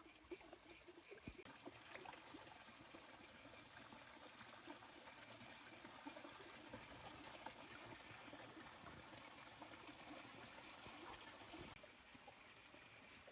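Faint running or trickling water, an even hiss that starts about a second in and cuts off near the end.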